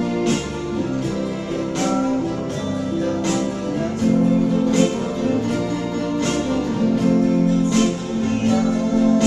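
Electric guitar and electronic keyboard playing a song together, with sustained chords and a steady beat of percussive hits about every one and a half seconds.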